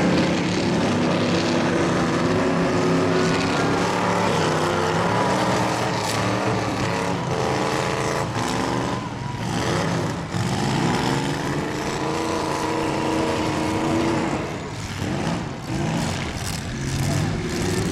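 Several demolition derby cars' engines running and revving, their pitch rising and falling, with a few short sharp knocks in the second half.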